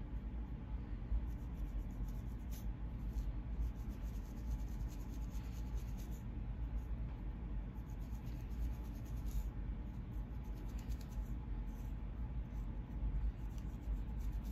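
Fine-toothed black plastic comb scratching along a hair part on the scalp in many quick, short strokes, lifting dandruff flakes from a dry, flaky scalp. A steady low hum lies underneath.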